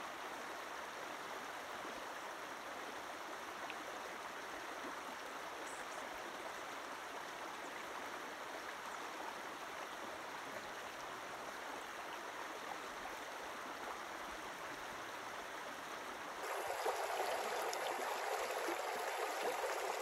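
Shallow river running over rocks in a riffle: a steady rush of water. Near the end it jumps suddenly louder and fuller.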